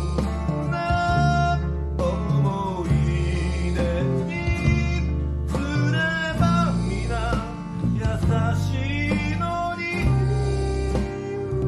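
A man singing a slow ballad in Japanese, accompanied by strummed acoustic guitar, electric bass and keyboard. A steady bass line sits under the vocal melody.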